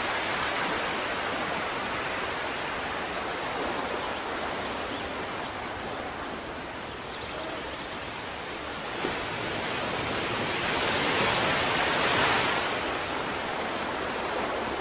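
Ocean surf breaking and washing up a sandy beach, a steady rush that swells to its loudest about eleven seconds in.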